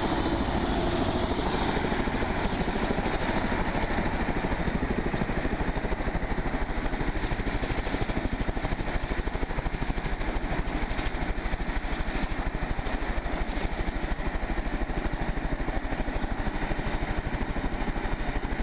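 Light turbine helicopter running on the ground with its main rotor turning slowly, a steady rapid beat of the blades over the engine's whine.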